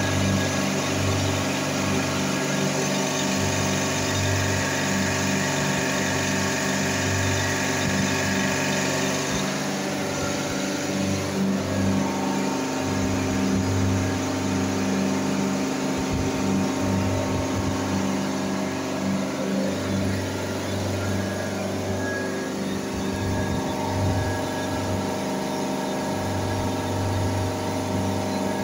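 York reciprocating refrigeration compressor running: a steady mechanical hum with a slowly pulsing low tone. It is running with a leaking or defective valve reed, which the uploader takes for the cause of its cylinder head overheating to about 115 °C.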